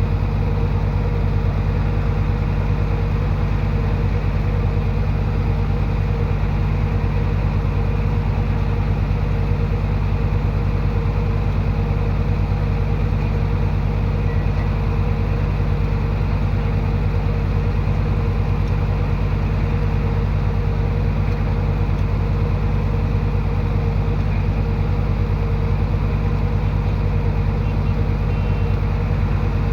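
Heavy diesel earthmoving-machine engine idling steadily, with a constant low hum that never changes pitch.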